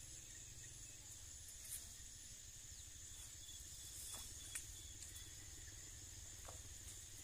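Quiet creekside ambience: a faint steady high insect drone over low wind rumble, with a few faint clicks.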